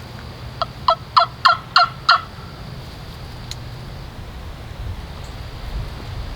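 Turkey call worked in a run of six loud hen yelps, about three a second, each note breaking from high to low.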